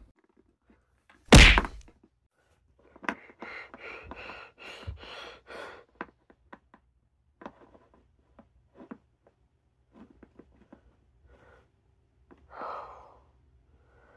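Plastic toy figurines knocked about on a tabletop: one loud thunk about a second and a half in, then a few seconds of rough scuffling, then scattered small clicks as the figures are tapped and tipped over.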